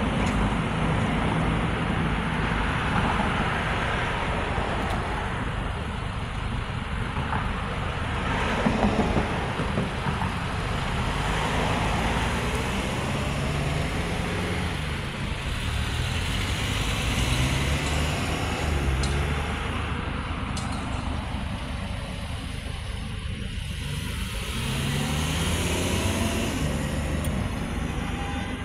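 Road traffic at a signalled intersection: cars passing and pulling away, their engines rising in pitch as they accelerate, over a steady hiss of tyres on the road.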